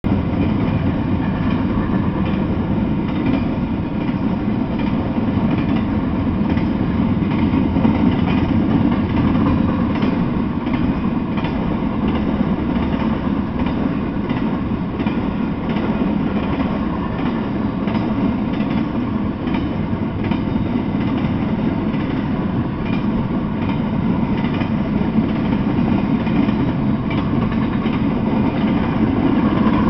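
Intermodal freight train cars rolling past: a steady low rumble and rattle of steel wheels on the rails, with faint repeated clicks.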